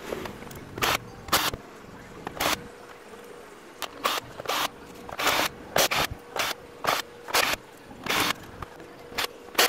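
Plastic back cover of a Sanyo LED TV being pried open with a thin tool: a string of sharp, irregularly spaced clicks and snaps as the cover's edge and clips give way.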